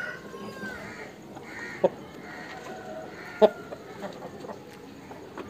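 Aseel chickens clucking, with two sharp knocks about two and three and a half seconds in.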